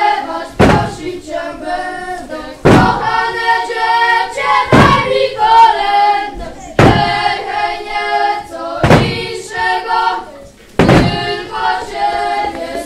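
A group of children singing a carol together, with a heavy thump about every two seconds marking the beat.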